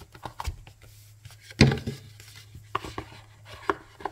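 A boxed deck of oracle cards handled on a cloth-covered table: cards and cardboard box tapped and pressed together, with scattered light taps and clicks. The loudest sound is a single thump about a second and a half in. A faint steady low hum runs underneath.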